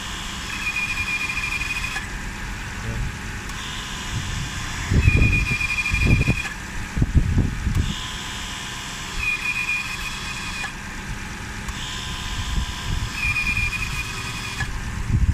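A 2001 Lexus GS430's brake system squealing each time the brake pedal is pressed, with the V8 idling underneath. The high-pitched squeal comes four times, about four seconds apart, each lasting two to three seconds.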